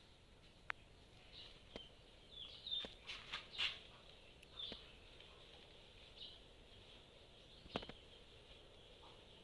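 Faint, short, high bird chirps in irregular bunches, mostly in the first half, with a few sharp clicks scattered through; the loudest click comes near the end.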